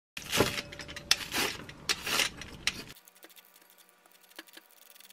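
Paper book pages turning and rustling for about three seconds. Then, after a cut, faint scattered clicks and scrapes as cabbage is shredded on a hand slicer into a glass bowl.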